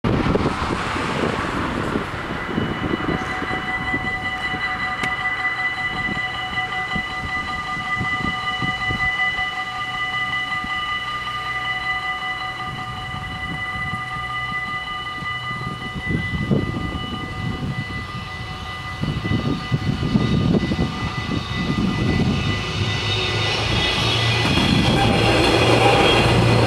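Automatic level-crossing warning bells begin ringing a few seconds in and keep ringing steadily. Near the end a Stadler GTW-D diesel-electric railcar approaches and passes, and its engine and wheel noise rises over the bells.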